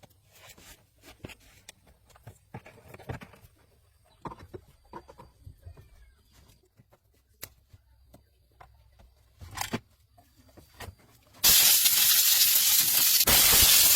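Faint, scattered clicks and knocks of hand work. About three-quarters of the way in, a loud, steady spraying hiss starts abruptly.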